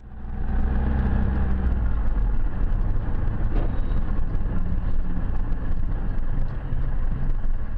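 Steady engine and road noise of a moving car heard from inside the cabin through a dashcam's microphone: a low, even rumble.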